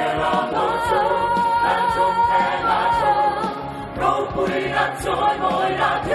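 Mixed choir of men and women singing, with one high voice holding a long note through the first half.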